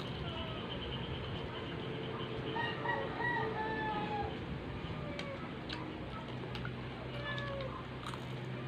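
Chickens calling: a rooster crows once about two and a half seconds in, among short repeated clucks, over a steady low hum.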